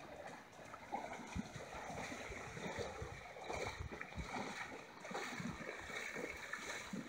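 Horses wading through a shallow pond, their legs splashing and sloshing the water in an uneven run of faint splashes.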